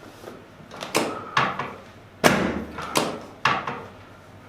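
Chiropractic adjustment of the sacroiliac joints: five sharp knocks and thuds in quick succession, the loudest about halfway through, each dying away within a fraction of a second.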